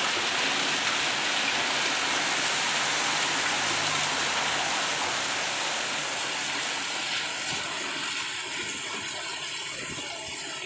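Heavy rain mixed with hail pelting a wet, hail-strewn street, a dense steady hiss of impacts that eases a little over the last few seconds.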